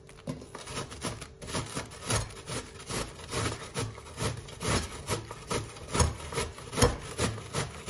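A chunk of raw white cabbage grated on a stainless-steel box grater: rasping strokes, about two a second, starting just after the beginning.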